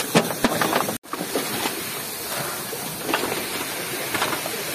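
Fire hose nozzle spraying a steady jet of water into a smouldering house fire, a continuous hiss; the sound drops out for a moment about a second in.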